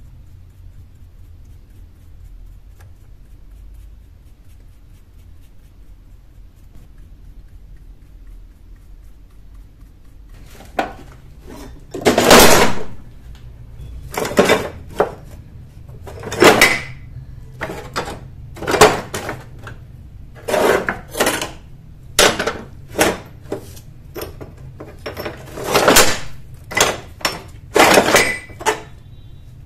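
Rusty iron tools and scrap clanking and scraping against each other and a metal box as they are picked through by hand, in a series of loud clatters a second or two apart. It starts about a third of the way in, after a stretch of faint low hum.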